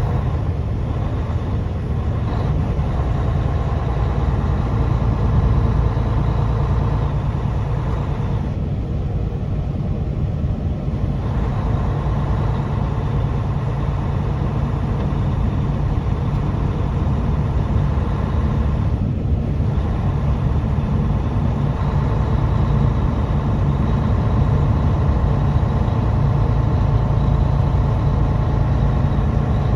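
Truck engine running steadily on the road, a low drone with tyre and road noise over it. The higher road noise thins out for a couple of seconds about nine seconds in, and again briefly near nineteen seconds.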